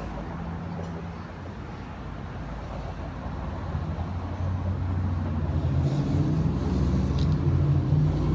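Low rumbling noise with a faint steady hum, growing louder about halfway through.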